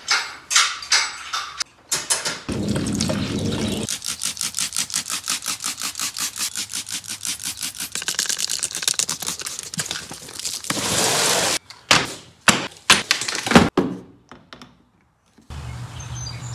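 Trigger spray bottle squeezed rapidly, about five short squirts a second, then one longer spray. A few sharp thunks follow.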